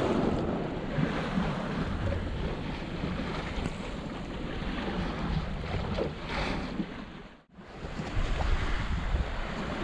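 Wind buffeting the microphone over the rush of sea water and waves along a small sailing fishing boat under way. The sound drops out for a moment about three-quarters of the way through, then resumes.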